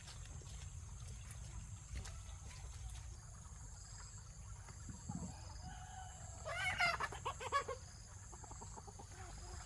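Chickens clucking, with one louder, drawn-out chicken call of about a second near seven seconds in.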